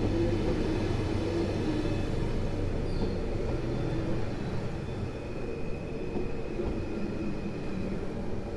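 A PKP Intercity electric multiple unit running past along the platform: a steady rumble of wheels on rail with a low electric hum, easing slightly after about five seconds, and a thin high whine in the second half.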